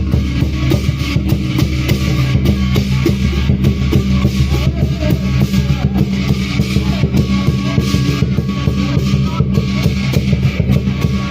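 Loud music driven by dense, fast drumming with cymbals, running without a break, over a steady low hum.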